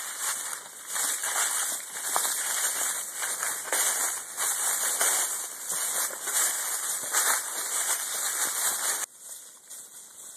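Footsteps crunching through dry fallen leaves, a dense crackling that stops abruptly about nine seconds in.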